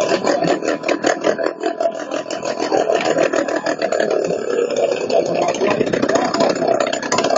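Motorcycle engines running with a fast, rough pulsing, inside the wooden drum of a well-of-death stunt show.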